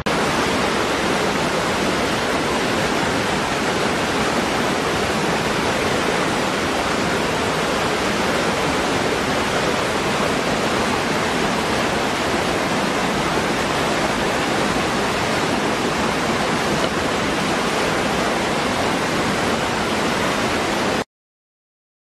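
Small waterfall pouring through a rocky gorge into a pool: a steady, even rush of falling water that cuts off suddenly near the end.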